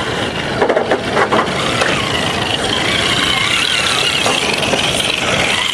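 Electric motors and gearboxes of radio-controlled crawler trucks whining as they drive, the pitch wavering with the throttle and getting stronger about two seconds in, over a steady wash of ocean surf. A few light knocks early on.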